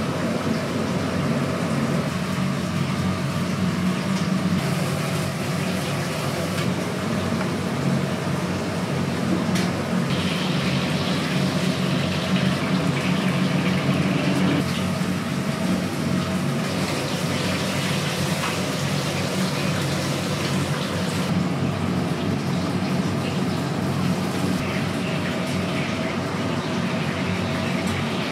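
Commercial kitchen ambience: a steady low hum of machinery with water running at times.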